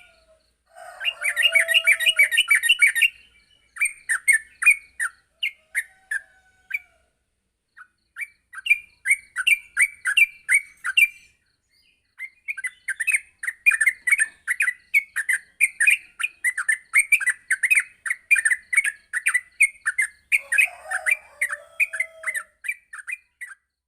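Yellow-vented bulbul (trucukan) singing in long runs of quick, short chirping notes, with a few brief breaks between phrases. This is the fast, continuous 'ngropel' style of song.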